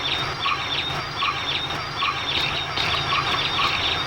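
Birds chirping: short high calls repeated a few times a second, over a low steady hum.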